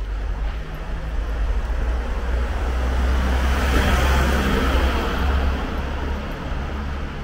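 A road vehicle driving past, its engine and tyre noise rising to a peak about four seconds in and then fading, over a steady low rumble of street traffic.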